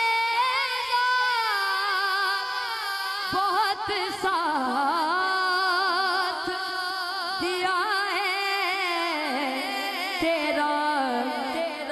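A boy's solo voice singing a naat, drawn out in long held notes with wavering ornaments and slow glides in pitch.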